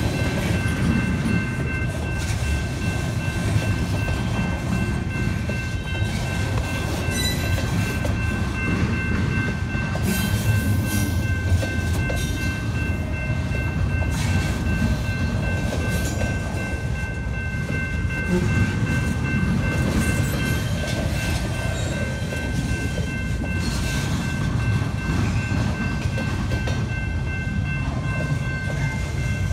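Double-stack intermodal freight train's well cars rolling past: a steady rumble of wheels on rail, with the clatter of wheels crossing rail joints.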